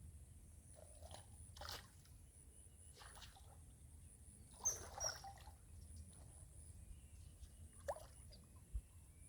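Faint water sounds: a few short sloshes and drips, the loudest cluster about five seconds in, over a low steady hum.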